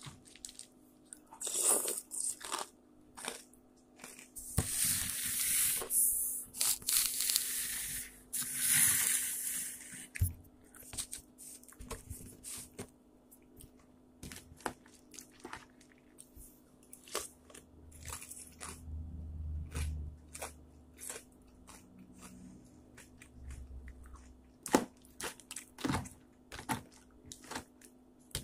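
Rustling and crinkling close to the microphone, loudest in two stretches in the first third, with scattered clicks and knocks throughout over a steady low hum.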